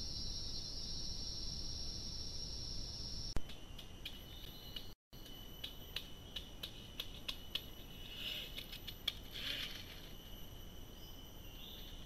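Forest insects buzzing steadily at a high pitch; the buzz changes abruptly a few seconds in to a thinner, steady high tone. Over it come scattered sharp clicks and two brief noisy swells late on.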